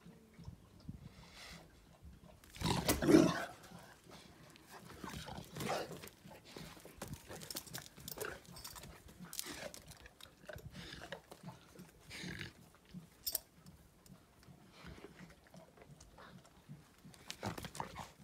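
A dog's loud, deep vocal sound lasting about a second, about three seconds in, followed by scattered quieter short sounds from the dogs.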